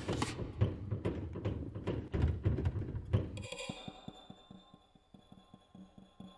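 Film soundtrack sound design: a dense run of low, rumbling percussive knocks that cuts off about three and a half seconds in, leaving a fainter fading high ringing tone over soft regular ticks.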